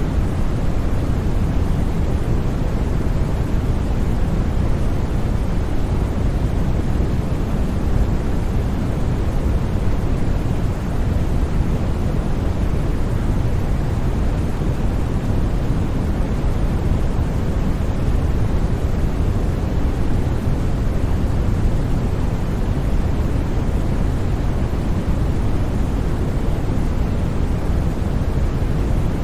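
Steady, unchanging white noise for sleep: an even hiss with no variation, heavier in the bass than in the treble.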